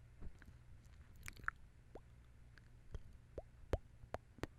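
Close-up mouth sounds: about a dozen scattered wet clicks and small pops of the tongue and lips, over a faint steady low hum.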